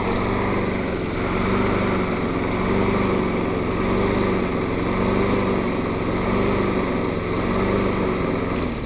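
Gas engine of a Scotts LM21SW walk-behind lawn mower running and surging, its speed rising and falling unevenly. The sound falls away sharply right at the end.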